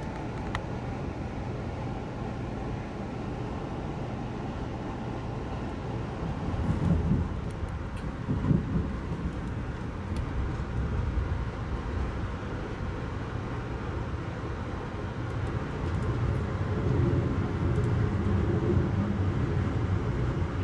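Steady rumble of a moving Amtrak passenger train heard from inside the coach, wheels running on the rails. It swells briefly twice in the middle and grows louder near the end as freight cars pass on the adjacent track.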